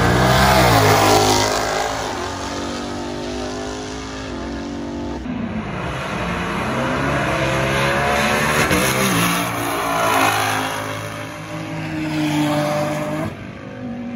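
Ford Mustang V8 accelerating hard down a drag strip: the engine note climbs and drops back at each gear change as the car pulls away.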